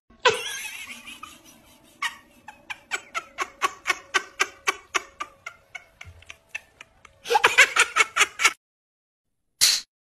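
Giggling laughter: a run of short laughing sounds at about three to four a second, which crowds into a quicker burst of laughter before stopping.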